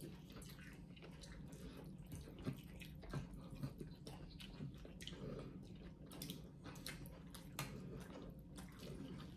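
Pho rice noodles being slurped and eaten from ceramic bowls: faint, irregular wet slurps and mouth smacks, with light clicks of utensils on the bowls.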